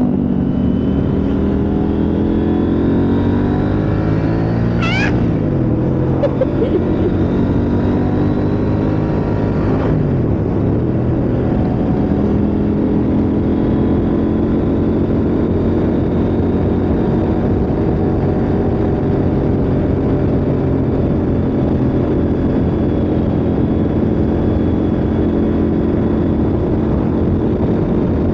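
KTM 890 Adventure R's parallel-twin engine running under way with a passenger aboard. Its note falls over the first few seconds, shifts briefly about ten seconds in, then holds steady at a cruise.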